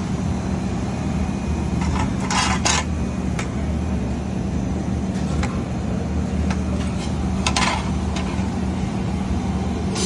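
A steady low machine hum, with a few short scraping noises about two seconds in and again about seven and a half seconds in.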